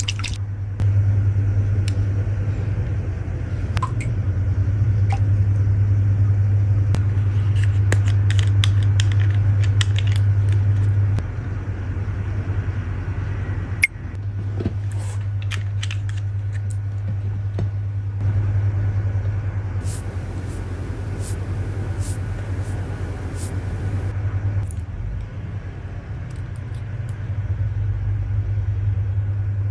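A steady low hum, likely a fan or the room's machinery, with small scattered clicks and ticks from the eyelash extension work, and one sharper click about fourteen seconds in.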